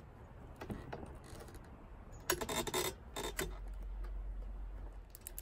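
Tiller handle brace and its cap screws and lock nuts being fitted to the metal handles: scattered clicks, with a brief burst of clicking and rattling a little over two seconds in. A low rumble runs through the last two seconds.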